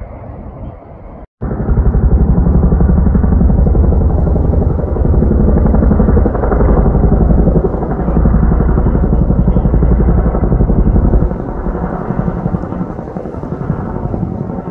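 Tandem-rotor Chinook helicopter flying overhead, its rotor blades beating rapidly and loudly. The sound starts abruptly about a second in and eases slightly near the end.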